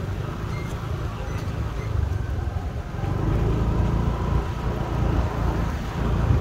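Road traffic rumble with wind on the microphone, a steady low noise that grows a little louder about halfway through.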